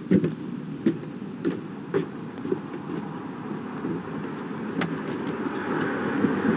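Footsteps picked up by a doorbell camera's microphone, a light knock about every half second for the first couple of seconds, over a steady rush of outdoor noise that grows louder toward the end.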